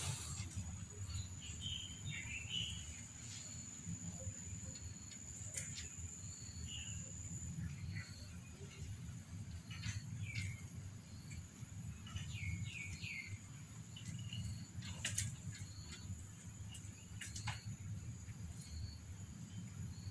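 Faint, scattered small-bird chirps, short and high, some in quick rising-and-falling runs, over a low steady rumble. A few sharp clicks or taps come through, the loudest about three quarters of the way in.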